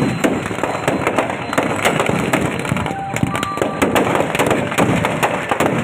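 Firecrackers packed inside a burning Ravana effigy going off in a dense, continuous run of cracks and pops, many a second.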